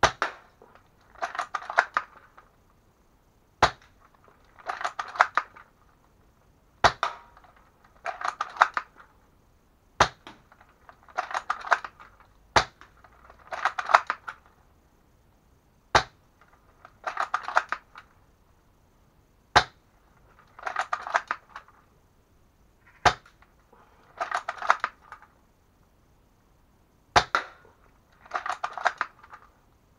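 Well MB4410A spring-powered airsoft sniper rifle shot over and over: a sharp crack about every three seconds, each followed about a second later by a short run of rattling clicks as the bolt is worked to cock it for the next shot.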